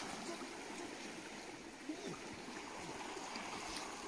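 Flooded, swollen river flowing steadily: a low, even rush of running water.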